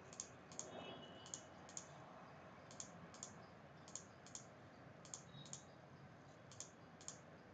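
Faint computer mouse clicks, in pairs about every second. Each pair is one offset step in a CAD drawing program: one click selects a line, the next picks the side to copy it to.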